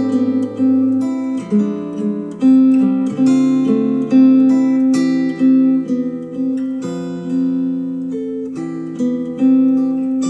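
Acoustic guitar music of plucked and strummed chords, played back through Polk Audio R100 bookshelf speakers.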